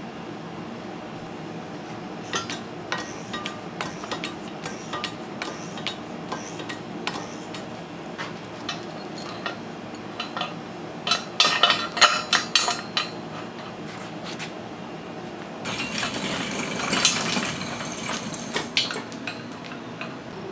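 Metal clinking and rattling as a steel hoist chain and hand tools are handled on a tractor engine: scattered clinks at first, a dense run of clinks about halfway through, and a longer clattering stretch near the end, over a steady low hum.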